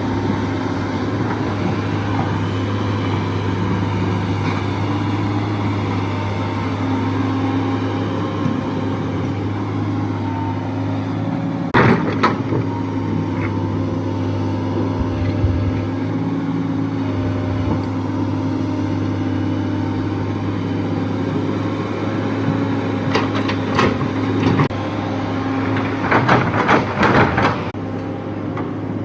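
Sany excavator's diesel engine running steadily under load, with a sharp knock about twelve seconds in and a cluster of knocks and rattles near the end.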